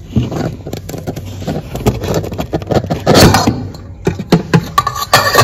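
Rummaging in a refrigerator's vegetable drawer: plastic produce bags rustling, with many short knocks and clicks of the drawer and produce being handled. The rustling is loudest a little after three seconds in and again near the end.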